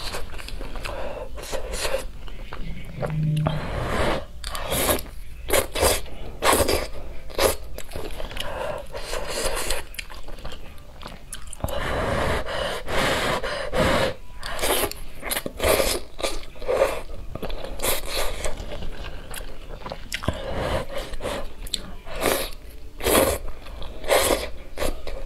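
Close-up eating sounds: wet slurps of wide glass noodles sucked up from spicy broth, with chewing in between. They come as many short, irregular strokes throughout.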